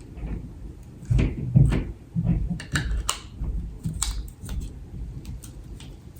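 Plastic parts of a neck-mounted phone holder being handled and fitted together: a string of irregular clicks and knocks over rubbing handling noise.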